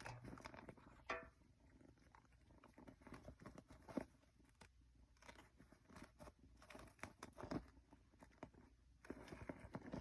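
Kittens scuffling with a hat: a faint, irregular patter of paws and rustling, with a few sharper taps about a second in, at four seconds and near the end.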